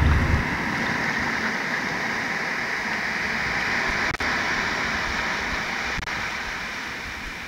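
Ocean surf making a steady rushing wash, with a brief dropout a little past halfway.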